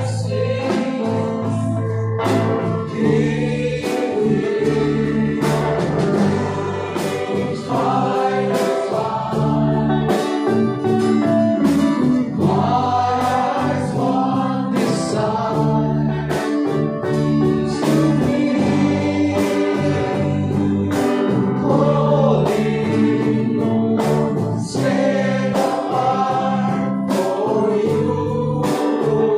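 A live praise and worship band playing a song: a man sings lead, possibly with other voices, over electric and acoustic guitars, keyboard and a steady percussion beat.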